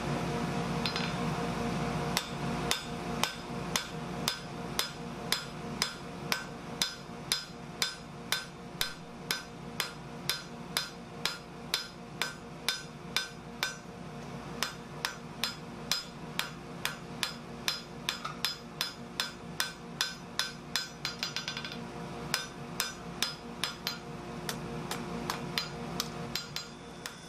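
Blacksmith's hand hammer striking red-hot steel flat stock on an anvil, spreading a holly-leaf pendant blank: steady ringing blows about two or three a second, a short pause midway, then a quick run of light taps before the hammering stops. A steady hum runs underneath.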